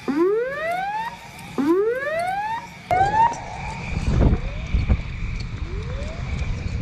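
Whooping alarm siren, each call rising steeply in pitch over about a second and repeating about every one and a half seconds, fainter after about three seconds behind a low rumble: an air-base scramble alarm.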